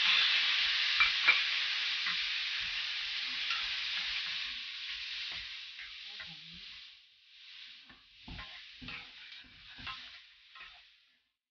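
Raw chicken feet sizzling in hot oil in a stainless-steel wok right after being added, the sizzle loud at first and dying away over about seven seconds. A wooden spatula stirs them, with short knocks and scrapes against the pan that stand out once the sizzle has faded.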